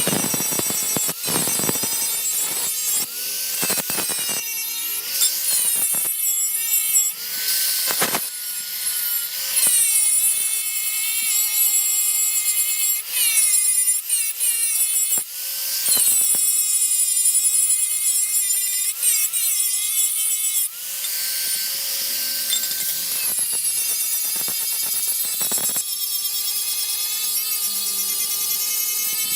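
Handheld electric power tool working on metal. Its motor whine dips and recovers in pitch as it bites, over a harsh grinding hiss, in a series of runs broken by short pauses.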